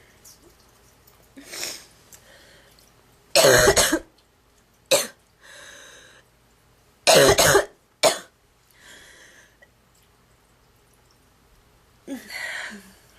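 A girl coughing in goose-like fits: two hard coughs about three and a half and seven seconds in, each followed by a short sharp one, with quieter coughs in between and near the end.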